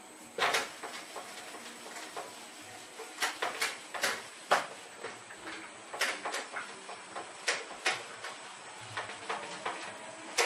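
A handheld whiteboard eraser rubbed across a whiteboard in a run of short, irregular swipes, with a louder first stroke about half a second in.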